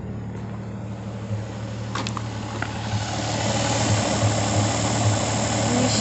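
A 1961 Rover P4 100's straight-six engine idling steadily, its idle speed raised by the first stage of the cold-start (choke) control. A couple of light clicks come about two seconds in, and the engine gets louder from about halfway through.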